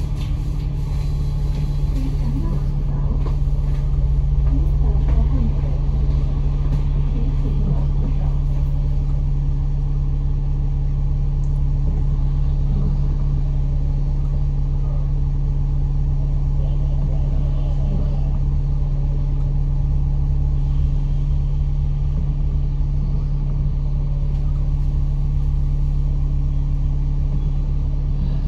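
Bus engine and road noise heard from inside the passenger cabin: a steady low drone with a constant hum.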